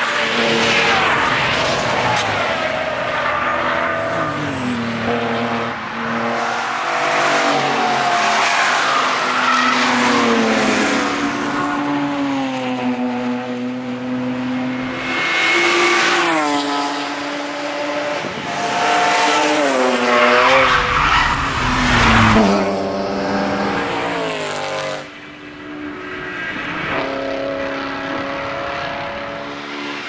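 Several BMW cars driving past in turn at speed. Each engine revs up and drops with the gear changes, and the pass about two-thirds of the way through, the loudest, comes with a deep rumble. Tyres squeal briefly around the middle.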